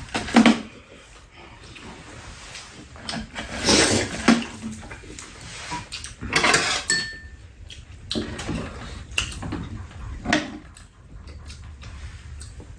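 Spoons and chopsticks clinking and scraping against ceramic bowls and a metal serving tray while two people eat, in scattered separate clinks a few seconds apart, with quiet eating sounds between them.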